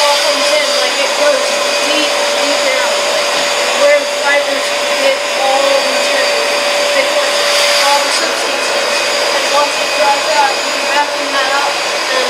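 Powr-Flite carpet extractor running steadily, its vacuum motor sucking the hot-water cleaning solution back up through the wand as it is pushed and pulled over carpet, with a constant whine.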